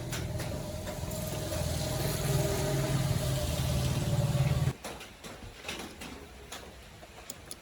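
A motor running steadily, growing slightly louder, then stopping abruptly a little past the middle, followed by a few faint clicks and knocks.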